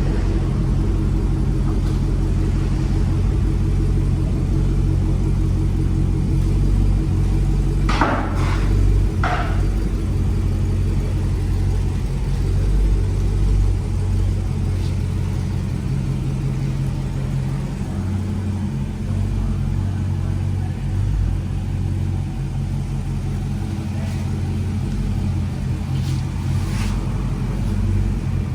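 Supercharged 6.2-litre HEMI V8 of a Dodge Challenger Hellcat running with a steady low rumble through Magnaflow bullet-style glass-pack mufflers, with a couple of short sharp noises about eight to nine seconds in.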